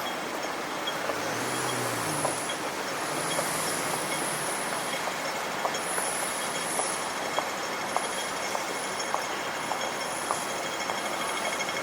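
Steel wheels of a rail vehicle squealing high on the rails, on and off, over a low rumble during the first few seconds. Regular footsteps tick along at walking pace.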